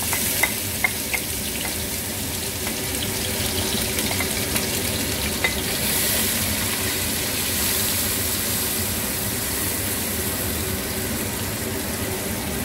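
Ground onion sizzling and frying in hot oil in an aluminium pot as it is scraped in and stirred with a wooden spoon. A few light knocks of the spoon against the bowl and pot come in the first second or so and once more about five seconds in.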